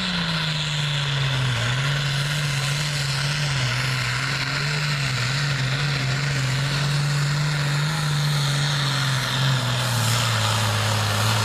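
The turbocharged diesel engine of a Limited Pro Stock pulling tractor runs flat out under full load as it drags the sled, belching black smoke. The engine note holds steady with slight wavering, then sags a little lower in the last few seconds as the sled's weight builds.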